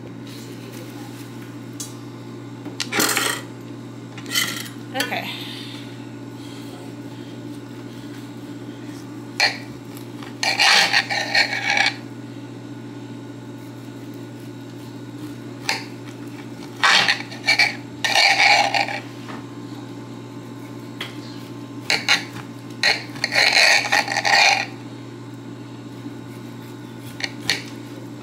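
Kitchen prep sounds: a knife and dishes clinking and scraping in short spells of a second or two, several times over, against a steady low hum.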